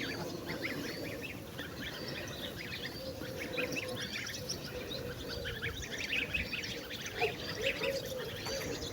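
Birds chirping and peeping: many short high calls, with a lower wavering call joining in the second half.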